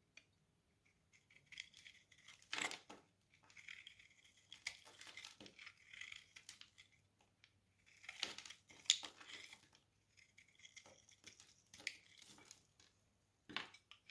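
A knife blade cutting through a bar of dry soap: crisp scraping and crunching in several runs, with sharp cracks about three seconds in, twice around eight to nine seconds, and again near the end.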